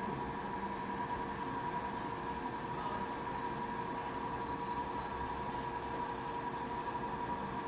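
A small machine running steadily: a constant hum with a high whine that does not change.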